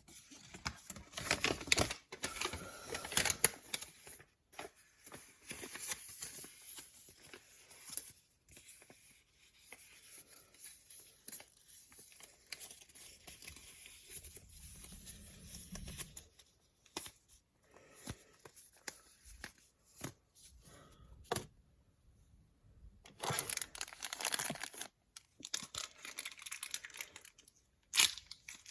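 Packaging being torn open and crinkled by hand, in irregular rustling spells that are loudest near the start and again about two-thirds of the way through, with a few sharp clicks.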